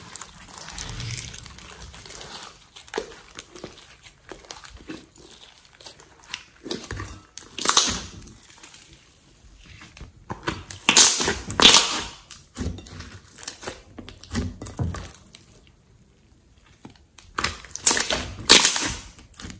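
Hands kneading, squeezing and stretching a thick pink slime: irregular wet squishes with clusters of sharp clicks and pops, loudest in bursts around the middle and near the end.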